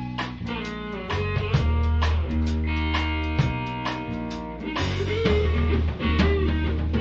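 Blues rock band playing an instrumental passage with no singing: guitar notes that bend and sustain over bass and drums.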